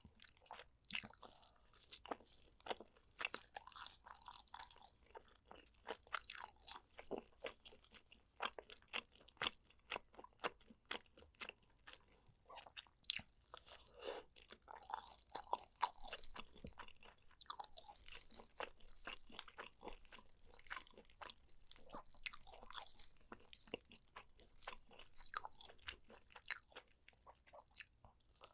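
Close-miked chewing and biting of spicy soy-braised pork ribs, with a dense, irregular run of sharp crunchy clicks and wet mouth sounds.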